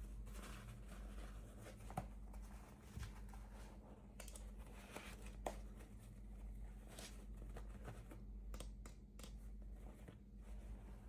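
Faint rustling and scratching of small toy packaging being handled and opened by hand, with light clicks and two sharper taps about two and five and a half seconds in. A steady low hum runs underneath.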